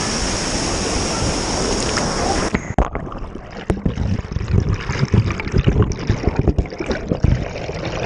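Small waterfall's water rushing steadily. About two and a half seconds in, the microphone goes under the water and the sound turns muffled and rumbling, with irregular low knocks from the churning water and bubbles.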